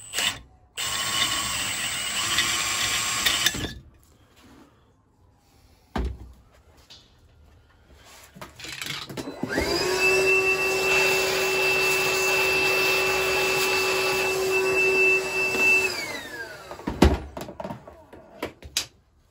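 Cordless drill running for about three seconds as a left-handed bit drills into a stud hole in the Lister vaporiser casting. Then, after a knock and a pause, a vacuum cleaner starts up, runs with a steady whine and winds down, sucking out the drilling swarf.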